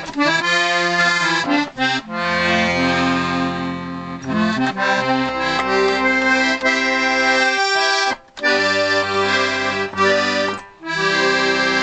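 Restored 1930s Pancotti accordion being played: sustained reed chords with bass notes underneath, moving through a tune, with two brief breaks about eight and eleven seconds in.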